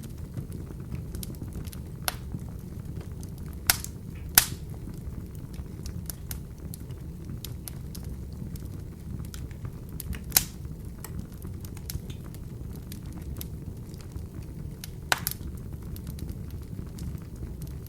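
Open fire burning in a fireplace: a steady low rumble of the flames with sharp crackling pops scattered through, the loudest snaps a little over four seconds in and about ten seconds in.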